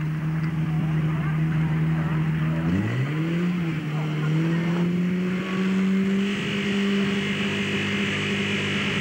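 Portable fire pump's engine running steadily, then revved up about three seconds in and held at the higher speed, with a high whine joining it about six seconds in.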